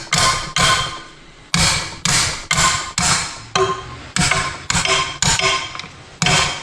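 Hammer striking metal over and over, roughly two blows a second with a short pause about a second in; each blow rings briefly.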